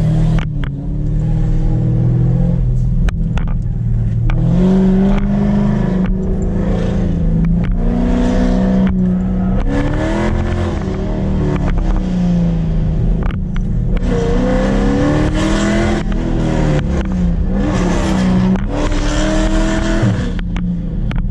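A performance car's engine driven hard through an autocross course, revving up and falling back over and over as the throttle goes on and off between corners. Its pitch climbs and drops every second or two, with a few sharp clicks.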